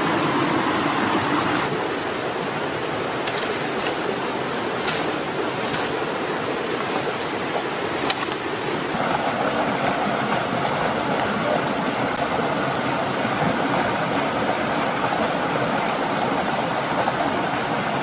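Steady rush of a mountain stream and waterfall, with a few faint clicks in the first half. The rush takes on a fuller, brighter tone about halfway through.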